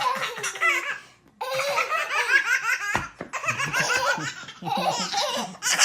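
Baby laughing in repeated fits of high-pitched giggles, with a short pause about a second in.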